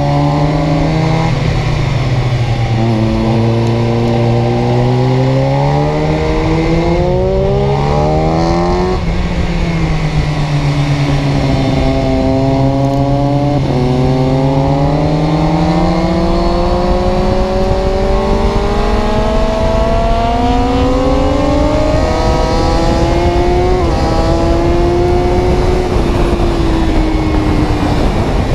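A vehicle's engine running under way, its pitch climbing slowly as the revs build and falling back as they ease off. Abrupt small drops in pitch, about halfway through and twice near the end, sound like gear changes.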